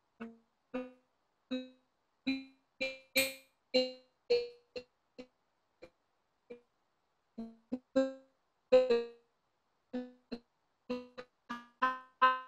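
A woman's voice breaking up over a poor video-call connection: it comes through only as short, choppy pitched snippets, each cut off into dead silence, so no words are heard.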